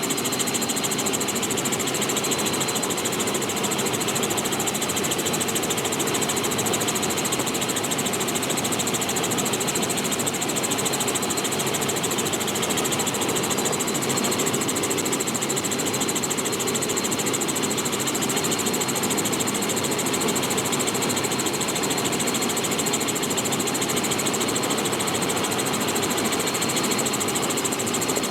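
Robinson R44 helicopter in flight with its doors removed: steady, loud engine and rotor noise mixed with wind rush through the open cabin.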